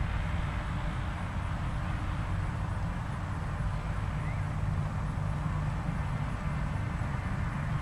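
Soft hoofbeats of a gaited horse moving at a smooth gait over grass, under a steady low rumble.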